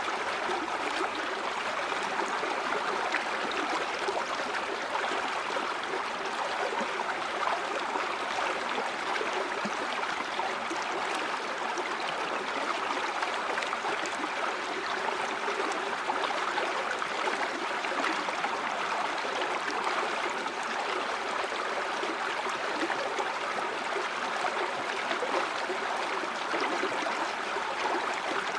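A river stream flowing and gurgling steadily, an even rush of running water with no change through the stretch.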